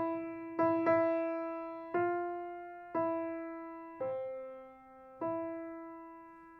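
Piano playing a slow line of single notes, mostly the same note repeated about once a second, each struck and left to ring and fade. Two notes come in quick succession near the start, and the last one rings on to the end.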